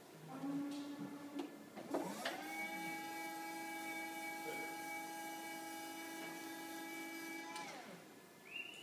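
Electric reach truck's motor whining: a short lower hum in the first second and a half, then about two seconds in it spins up to a steady pitch, runs evenly for about five seconds, and winds down near the end.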